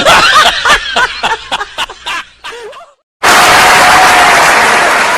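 Rapid high-pitched snickering laughter that fades out. After a brief silence, a loud, even rush of noise starts suddenly, like a crowd cheering.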